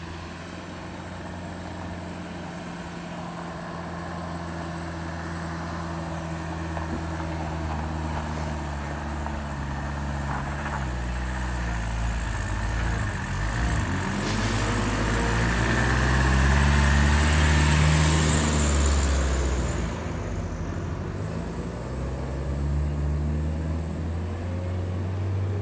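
A motor vehicle's engine running and slowly coming closer, growing steadily louder to a peak about two-thirds of the way through. Its note rises and falls around the loudest point before it eases off somewhat.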